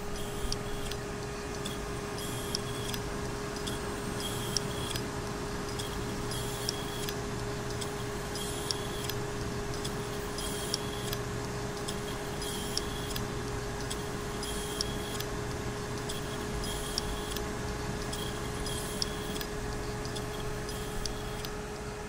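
Broken hard disk drive spinning with a steady whine, a scratchy click repeating about every two seconds: the clicking and scratching of a mechanically failing drive.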